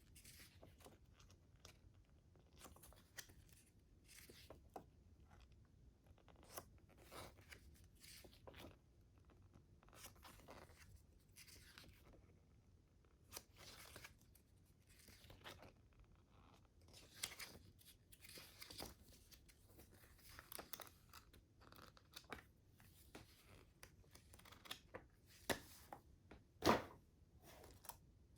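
Unboxing packaging being handled: scattered crinkles, rustles and small taps of plastic and cardboard, with one louder knock near the end.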